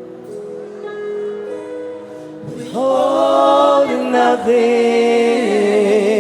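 Gospel worship music: soft held chords, then several voices come in loudly about halfway through, singing long held notes with vibrato.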